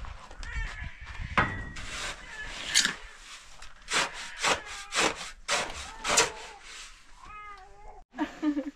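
Sharp knocks: two loud ones in the first three seconds, then a run of five about twice a second, with a meow-like animal call near the end.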